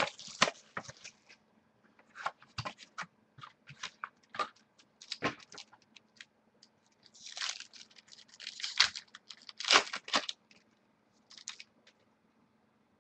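Foil wrapper of a baseball card pack crinkling and tearing as it is peeled open by hand, in a run of short crackles with louder crinkly bursts about seven and ten seconds in, the cards slid out with a few light clicks; it stops shortly before the end.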